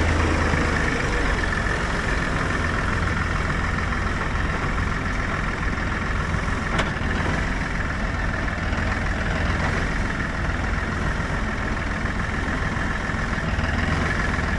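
Tractor engine running steadily, with a single brief click about halfway through.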